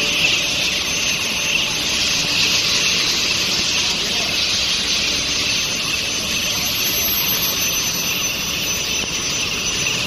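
Steel bar induction hardening and tempering line running: a steady, loud high hiss with a faint thin high tone over it.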